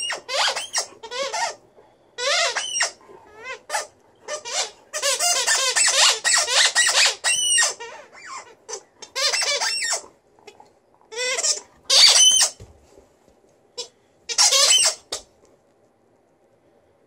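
Green rubber squeaky ball squeaking in repeated bursts as an Alaskan Malamute chews it. There is a fast run of squeaks about a third of the way in, and the squeaking stops a little before the end.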